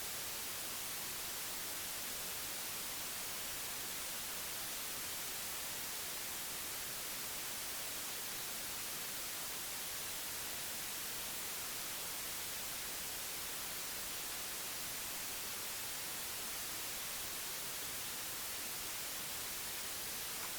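Steady static hiss, like an empty broadcast signal, cutting in abruptly from dead silence and holding at an even level with no tones or events in it.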